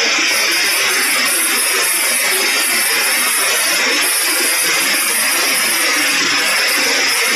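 Vibratory bowl finishing machine running with a load of ceramic tumbling media: a steady, dense rattle of the pellets churning against each other and the bowl.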